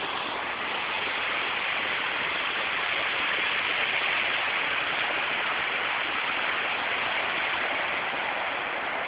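Rocky stream's whitewater rushing steadily over boulders.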